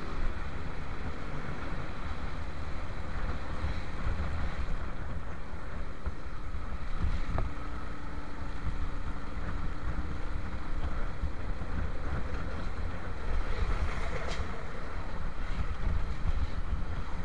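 Steady wind rushing over the microphone of a moving motorcycle, with the engine and road noise underneath.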